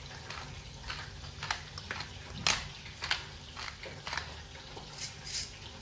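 Pepper mill grinding black pepper: a run of short, irregular crunching clicks, a few each second, as the peppercorns crack.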